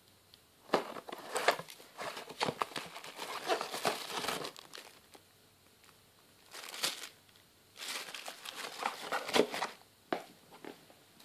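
Fireworks packaging being handled by hand, with a clear plastic bag and cardboard boxes crinkling and rustling in three bouts, the first and last a few seconds long and a short one between.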